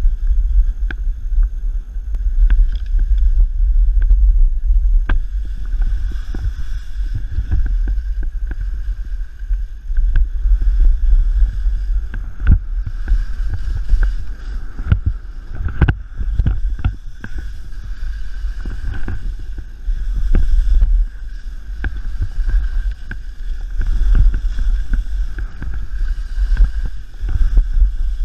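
Wind buffeting an action camera's microphone while skiing downhill, a constant low rumble, with the skis scraping over the snow and scattered sharp clicks and knocks, thickest in the middle.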